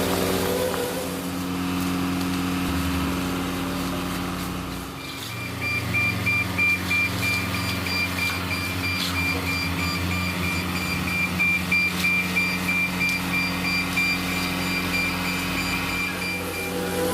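Heavy vehicle engine running steadily. From about five seconds in until near the end, a high electronic warning beeper sounds over it in rapid, repeated pulses.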